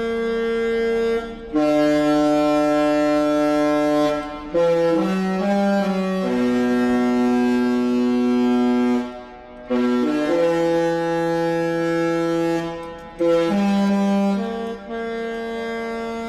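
The cruise ship Royal Princess's musical horn playing a melody: a string of held chords, several horn notes sounding together, changing every one to three seconds with short breaks between them. It stops near the end.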